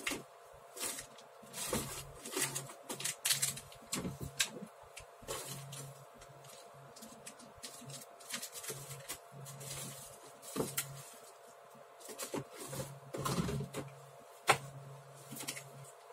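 Irregular clicks, knocks and rustling of someone rummaging off-camera for a cable connector, over a steady low hum.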